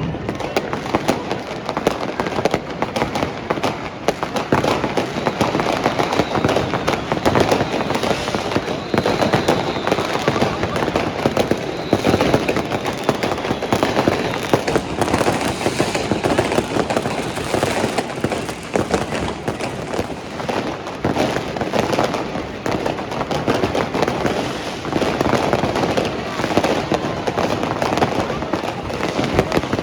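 New Year's Eve fireworks and firecrackers going off without a break: a dense, continuous run of overlapping bangs and crackles.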